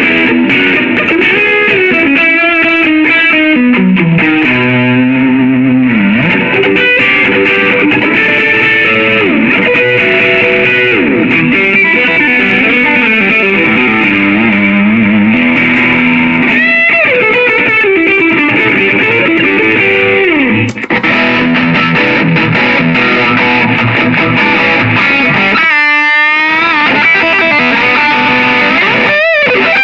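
Electric guitar played through a Line 6 POD HD300 multi-effects pedal, showing off its amp and effects tones: single-note melodic lines with frequent bends and slides. Near the end the pitch swoops rapidly up and down.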